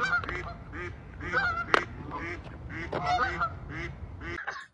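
A flock of Canada geese honking over and over, short repeated calls over a low steady rumble. One sharp click stands out about halfway through, and the sound stops abruptly near the end.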